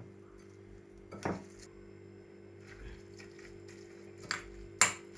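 A few light clicks and knocks from mixing seasoned rice in a bowl, the sharpest with a brief ring near the end, over a steady low hum.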